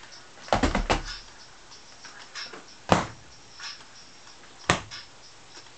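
Hard knocks on a hard surface: a quick run of several about half a second in, then two single sharp knocks, the second nearly two seconds after the first.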